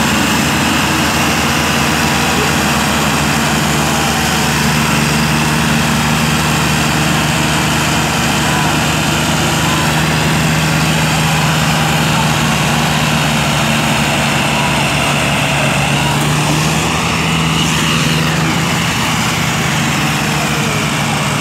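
Diesel tractor engines running hard and steady under load: a Massey Ferguson 260 and New Holland tractors chained together, pulling a heavily loaded sugarcane trolley.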